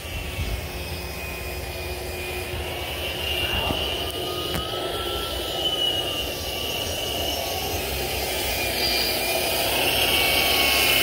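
Floor edger sander running with a steady motor whine as it sands the mahogany deck boards, getting louder toward the end.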